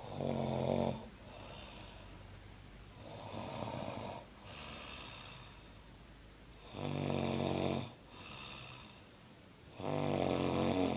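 A woman snoring in deep sleep: four rattling snores about three seconds apart, the second one softer, with quieter breathy sounds between them.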